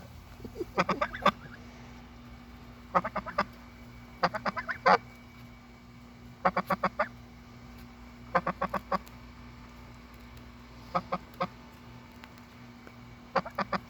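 Goose honking in quick runs of several honks, seven runs a second or two apart, over a steady low hum; these are what its keeper calls happy honks.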